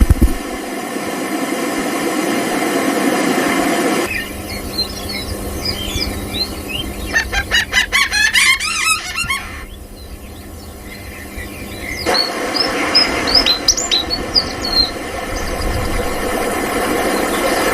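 Birds chirping and calling in short rising and falling notes, with a dense rapid run of calls in the middle. The background noise changes abruptly twice, as at cuts between recordings.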